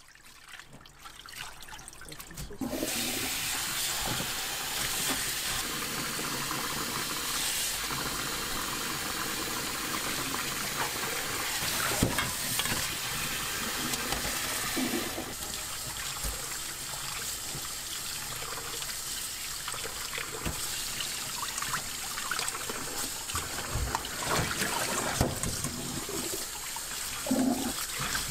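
Tap water running into a stainless steel sink while hands wash and rub raw chicken feet in a bowl and strainer of water. The water sets in after a couple of seconds, with a few sharp clicks along the way.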